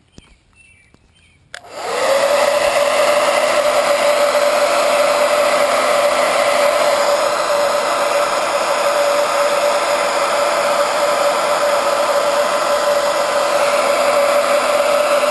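Blow dryer switched on about a second and a half in, then running steadily: a loud rush of air with a steady tone in it.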